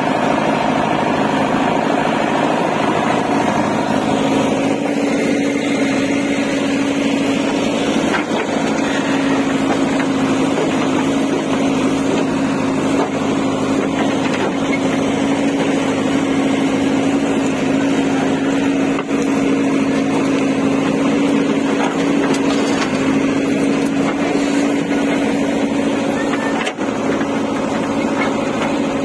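JCB 3DX backhoe loader's diesel engine running steadily under load as the backhoe arm digs into dry soil, with a few faint knocks.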